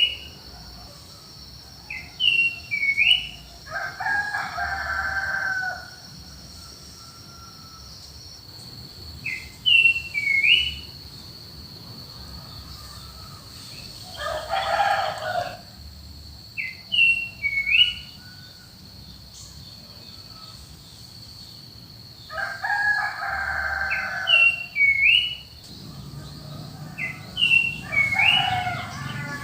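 Roosters crowing four times, each crow about two seconds long, over a small bird repeating a short two-note whistled call every few seconds. A steady high insect drone runs underneath and fades out a few seconds before the end.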